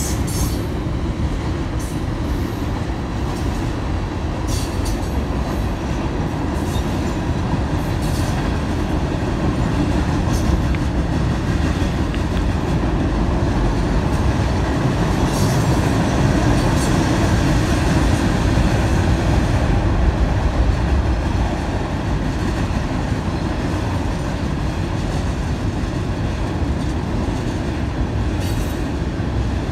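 Freight cars rolling steadily across a steel girder railway bridge: a continuous low rumble with scattered sharp clicks from the wheels.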